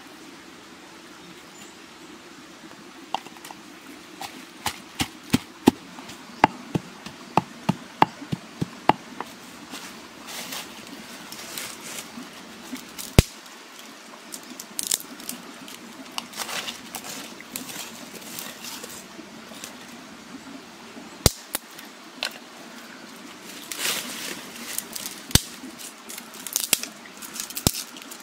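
Dry sticks snapped by hand into short lengths for kindling: a run of sharp cracks, about two a second, a few seconds in, then rustling of twigs and dry leaves with a few more single snaps.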